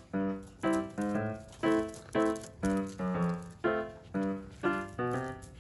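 Background music: a light, bouncy tune of evenly spaced pitched notes, about two a second.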